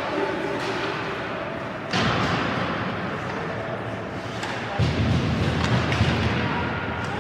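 Ice hockey game heard from the stands of a rink: steady arena noise with a sudden thump about two seconds in and a heavier, low thudding rumble near five seconds.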